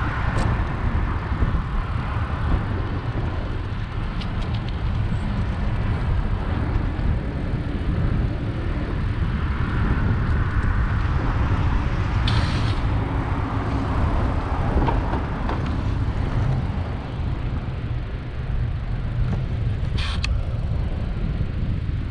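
Steady wind rumble over the microphone of a bicycle-mounted camera, mixed with tyre and road noise from the bike riding along. Two brief, sharper higher sounds come about twelve and twenty seconds in.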